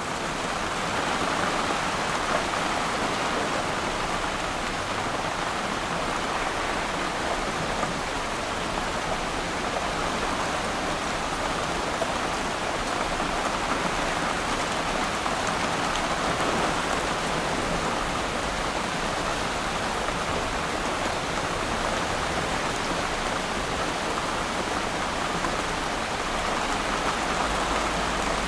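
Steady rain falling on water, an even patter of drops.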